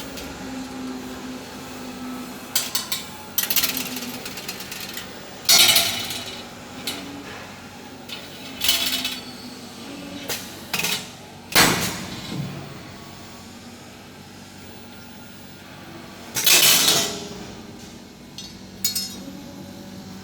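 Irregular knocks and clinks of hard objects being handled, about a dozen spread unevenly, with a low thump near the middle and a longer clatter about two-thirds of the way in, over a faint steady hum.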